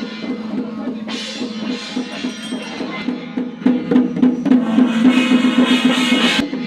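Chinese temple ritual percussion: drums beat a fast, even rhythm of about five strokes a second over a steady held tone. Cymbals come in loudly from about halfway and cut off sharply near the end.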